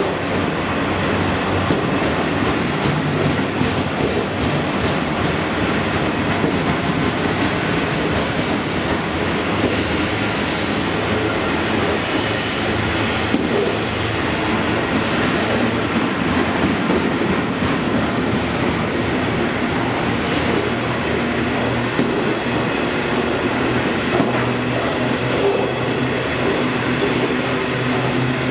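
Freight train of flat wagons loaded with steel rolling steadily past, a continuous rumble of wagon wheels on the rails with occasional clacks.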